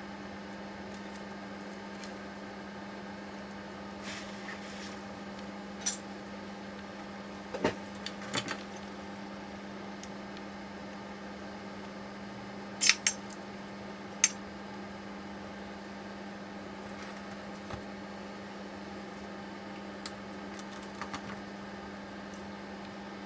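Sharp metallic clinks and taps of steering rack parts being handled and set down on a workbench, about half a dozen loud ones with the loudest pair about 13 s in, over a steady low electrical hum.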